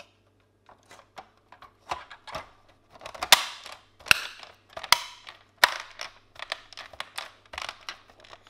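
Plastic back case of a Hummer H2 instrument cluster being pressed onto the housing, its clips snapping into place: a run of light plastic clicks and knocks, with four sharp snaps in the middle, a little under a second apart.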